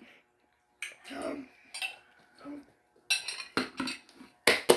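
A metal spoon clinking and scraping against a ceramic bowl of noodle soup as it stirs and scoops. A few sharp clinks come in the last second and a half, the loudest near the end.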